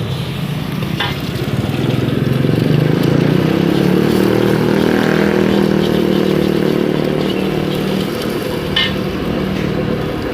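An engine's steady drone, swelling between about two and six seconds in, over a steady hiss of noodles frying in a wok, with two short sharp clinks.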